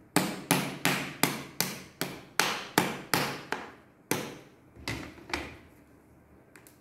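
Pestle knocking against the hard shell of a bael (wood apple) fruit to crack it open: about a dozen sharp knocks, roughly three a second, then two weaker ones about five seconds in.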